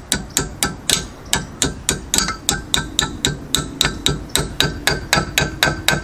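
Steady metal-on-metal tapping, about four strikes a second, each with a short ring: a ratchet handle tapping a wrench to tighten a VW rear axle nut until its cotter-pin hole lines up.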